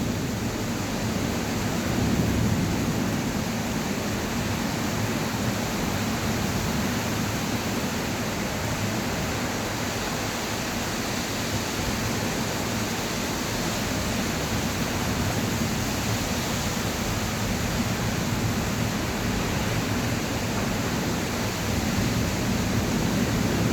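Heavy rain falling in a steady downpour, an even hiss with a low rumble underneath.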